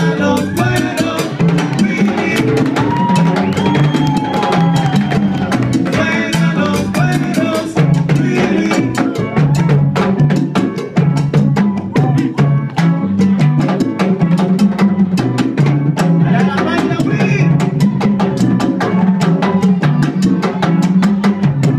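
Live salsa band playing a fast mambo groove, congas and drums driving a steady beat, with melody lines coming in over the percussion for a few seconds near the start and again briefly past the middle.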